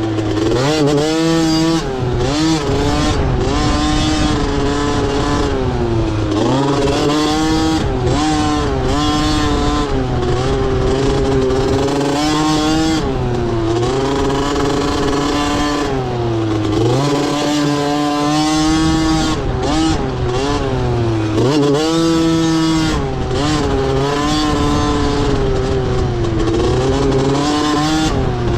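Motocross dirt bike engine revving hard, its pitch climbing and dropping again every couple of seconds as the throttle is worked around the track.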